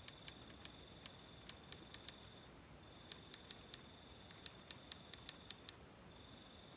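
Typewriter keystroke sound effect: two runs of quick, irregular key clicks, about nine and then about ten, with a pause of about a second between them.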